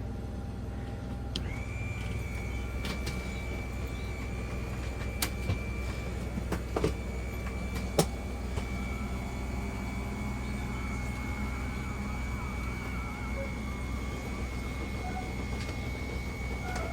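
Electric trailer jack motor running steadily: a high whine starting about a second and a half in over a low hum, with a few sharp clicks and knocks a few seconds later.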